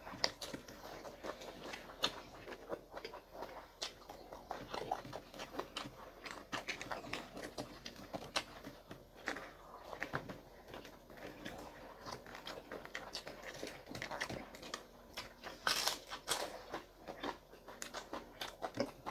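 Close-miked eating: chewing and crunchy bites with irregular wet clicks and smacks, and a louder burst of crackling about 16 seconds in.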